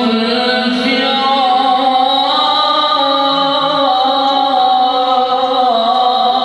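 A man reciting the Quran in a melodic, drawn-out style, holding one long ornamented phrase whose pitch moves up and down in small steps.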